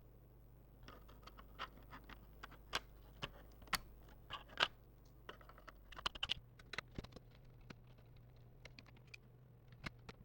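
Irregular light clicks, taps and scrapes of hands handling laptop parts while fitting a RAM module into an opened laptop.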